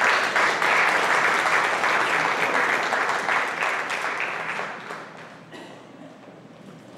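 Applause, loud at first and dying away about five seconds in.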